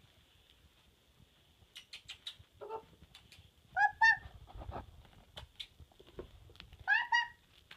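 A puppy gives short, high-pitched squeaky yips in two pairs, about three seconds apart, among light clicks and taps as it plays.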